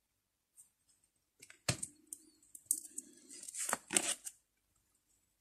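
Tarot cards being handled on a table: short clicks and papery rustles as the cards are slid and gathered, with long fingernails tapping against them.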